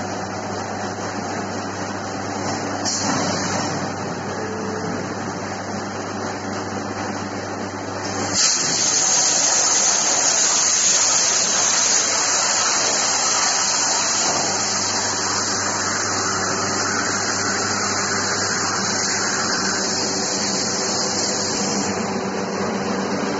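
CNC plasma cutting machine humming steadily, then about eight seconds in the plasma torch arc strikes and cuts metal with a loud, steady hiss that runs on to the end.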